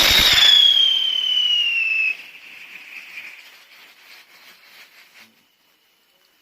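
A ground firework set off: it ignites suddenly with a loud hiss and a high whistle that falls slowly in pitch for about two seconds. It then drops to a faint sputter that dies out about five seconds in.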